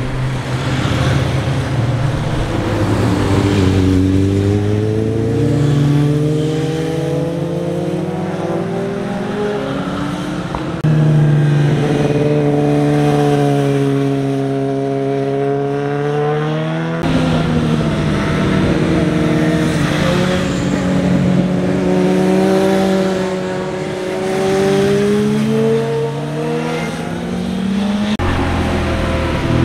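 Motorcycle engines, a touring bike and a sport bike among them, passing one after another: each engine note falls and then climbs again as it accelerates. The sound switches abruptly from one bike to the next a few times.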